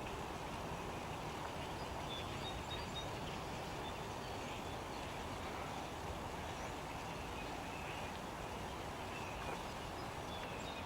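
Steady outdoor ambience: a constant low rushing noise, with a few faint, short, high chirps now and then.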